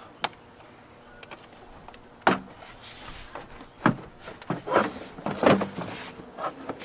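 Plastic engine air intake duct being worked loose by hand and lifted aside: a scattered series of short knocks and clatters of plastic against the engine.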